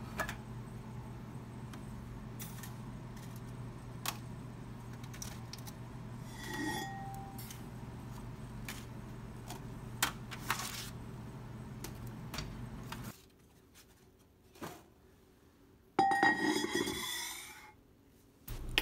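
Metal tongs clink against a drying oven's wire rack and foil sample trays, over a steady hum from the oven. Near the end, the heavy glass lid of a desiccator scrapes and rings as it is slid into place.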